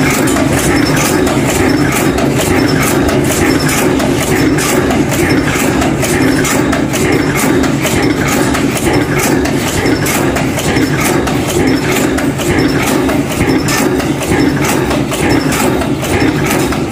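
Cold-forging bolt former machine running in production: a steady regular clatter of its strokes over a heavy mechanical hum.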